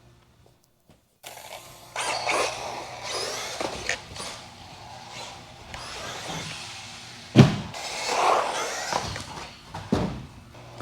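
Electric 1/10 RC buggy, a Team Associated RC10B6.4, running on a track. After about a second of near silence its motor whine and tyre noise swell and fade as it drives. A sharp thud about seven seconds in, and a smaller one near the end, are the car landing or hitting something.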